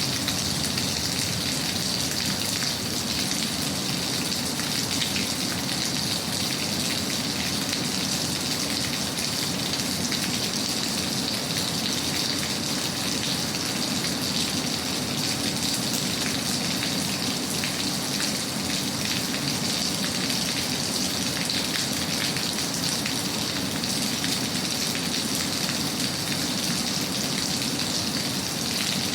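Steady rain, an even hiss of falling drops with no breaks.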